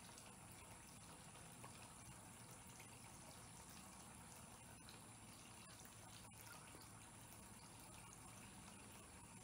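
Near silence: faint steady background hiss with a thin, high-pitched whine.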